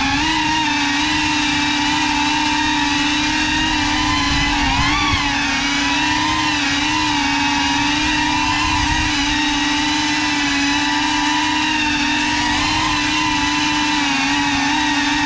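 GEPRC Cinelog 35 cinewhoop drone in flight: its brushless motors and ducted propellers give a loud, steady buzzing whine, the pitch wavering slightly with throttle and briefly rising about five seconds in.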